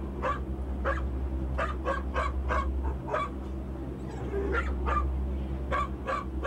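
A dog barking repeatedly in short, sharp barks at irregular intervals, some in quick runs of two or three, over a steady low hum.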